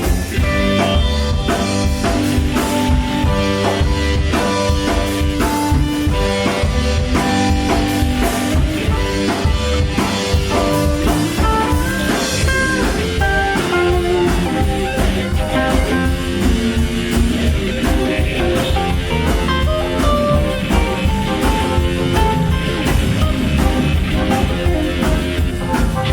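Live rock band playing an instrumental passage without vocals: guitars, bass, drums and keyboards over a steady drum beat.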